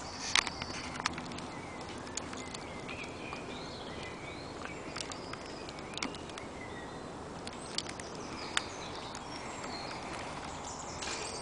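A metal field-gate latch and a chain dog lead clanking and clinking as the gate is worked: a few sharp metallic clicks, the loudest about half a second in, and more scattered later. Wild birds sing in the background throughout.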